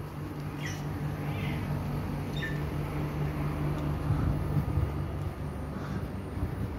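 Steady low machine hum, with three short high-pitched animal calls in the first few seconds.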